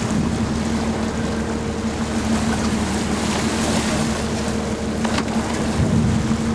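Boat engine running steadily, a constant low hum over the noise of wind and water, with a brief click about five seconds in.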